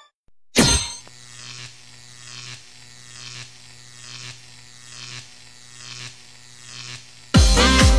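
Plasma ball buzzing with a steady electric hum that swells about once a second, starting suddenly about half a second in. Loud music cuts in near the end.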